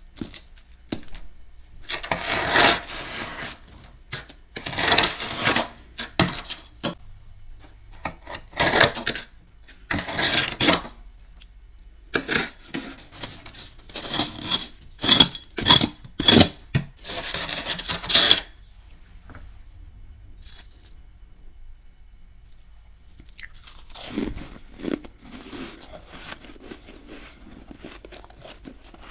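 A spoon scraping and crunching through thick, fluffy frost built up on a deep freezer's wall, in a series of uneven strokes that are densest in the first half, with softer scraping near the end.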